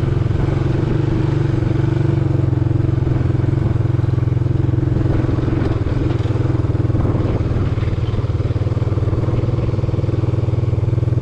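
Vehicle engine running steadily at an even speed, a constant low hum.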